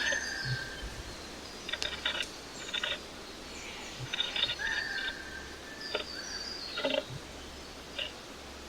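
Small birds in a nest box, with short bursts of chirping and scratchy rustling of nesting material, several times, and a few clear whistled notes, some falling in pitch. A steady low hum runs underneath.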